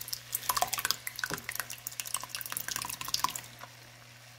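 Thick bottled tomato pasta sauce pouring out of the bottle into a hot pan of fried mince and vegetables, with irregular wet plops and sputtering pops as it lands. The pouring stops about three and a half seconds in.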